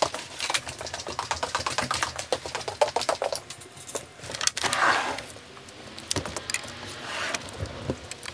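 Rapid light clicking and clattering of carried fishing gear and footsteps while walking indoors, then a short whoosh about halfway through as a glass door to the outside is opened.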